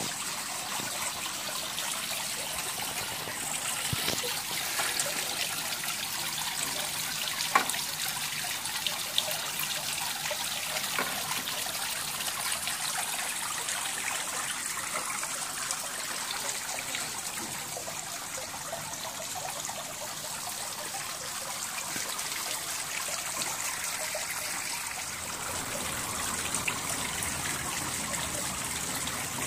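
Water trickling steadily in a stone garden fountain, with two brief sharp clicks about a quarter of the way in.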